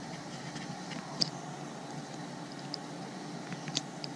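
Small, faint clicks and ticks of a metal pick tool working inside a plastic three-pin quick-connect plug, probing to release the pins: one sharper click about a second in and a few lighter ticks later. A steady low hiss runs underneath.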